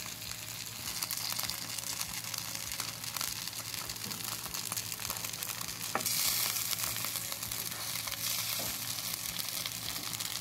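Grated bottle-gourd thalipeeth batter sizzling steadily in oil on an iron tawa. The sizzle grows a little louder for a couple of seconds about six seconds in, while a wooden spoon handle pokes small holes through the patty.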